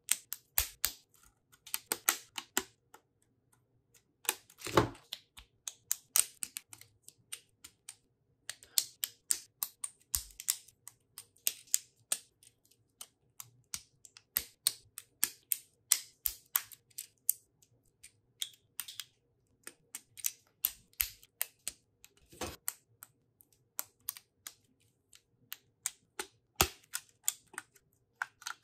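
Lego bricks clicking as they are snapped together and picked from loose plastic pieces: a run of irregular, sharp plastic clicks, with a couple of louder knocks.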